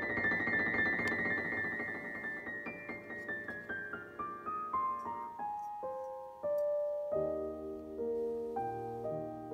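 Background piano music. A run of single notes steps downward, then repeated chords over a bass line come in about seven seconds in.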